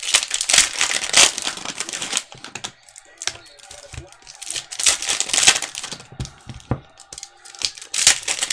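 Foil trading-card pack wrapper crinkling and tearing as it is ripped open by hand, with loud bursts over about the first two seconds, around the middle and again near the end, and quieter rustling of the wrapper and cards between.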